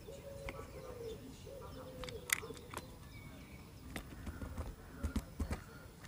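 Blue tits and a great tit at a feeder: scattered sharp clicks and taps of pecking and hopping on the plastic food trays and wooden perches, with a few low wing-flutter thumps near the end. A faint low cooing sounds in the first second or so.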